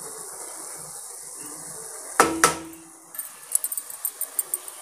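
Grated carrots cooking in milk in a kadai with a faint, steady sizzle. About two seconds in come two sharp knocks of a wooden spatula against the pan, then a run of light clicks.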